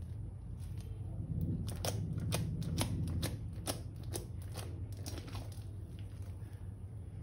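Slime being worked by hand, giving a run of irregular sharp clicks and crackling pops, densest in the middle, over a low steady hum.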